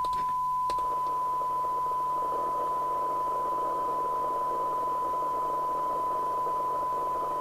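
Steady 1 kHz test tone from the Cybernet Beta 2000 FM CB radio's receiver audio. After a couple of clicks near the start, hiss comes up under the tone: a weak signal near the 12 dB SINAD sensitivity point of about 0.26 µV.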